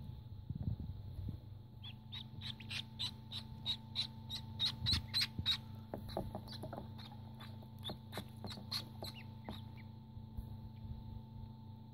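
Indian Runner ducklings peeping, short high peeps about four a second from about two seconds in, thinning to scattered peeps after about six seconds.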